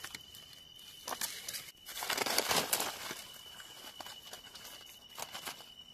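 Dry leaf litter rustling and crackling underfoot and under hands on a forest floor, with scattered crackles and a louder burst of rustling about two seconds in. A faint steady high tone sits behind it.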